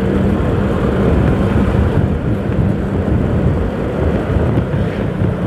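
Motorcycle engine running steadily at low road speed, heard through a low hum under a constant rumble of road and wind noise on the camera.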